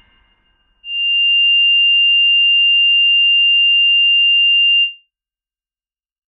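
A single steady pure electronic tone at the note F7 (about 2794 Hz), starting about a second in and holding for about four seconds before it stops. Before it, the last faint tail of an earlier struck note at the same pitch dies away.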